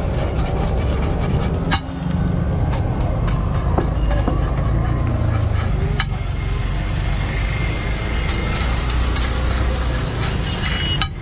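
Street food stall noise: a steady low rumble, with scattered sharp clicks.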